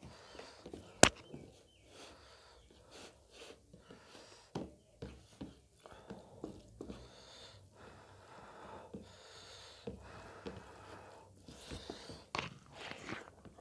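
Eating by hand: chewing and mouth sounds of pork and rice, with fingers working the rice on a steel plate. Scattered short clicks run through it, the loudest a single sharp click about a second in.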